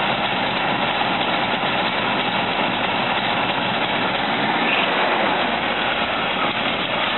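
Carbureted V8 engine running steadily at idle.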